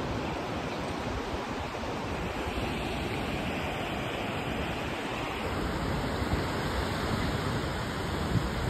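Ocean surf washing steadily up the beach, an even rushing hiss of breaking waves at the shoreline, with a little wind buffeting the microphone near the end.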